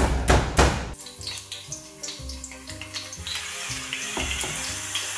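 Flat of a chef's knife slammed down on garlic cloves on a wooden cutting board: three heavy thumps within the first second. About three seconds in, smashed garlic in hot olive oil in a stainless steel frying pan starts a steady sizzle and crackle, from the moisture in the smashed cloves.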